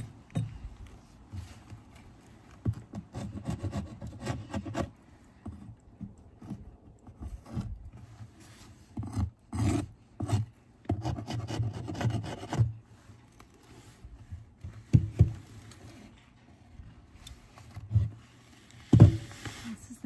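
Metal hive tool scraping and rasping across a wooden Layens hive frame and its comb of dead bees, in several bouts of quick strokes, with a few sharper knocks near the end.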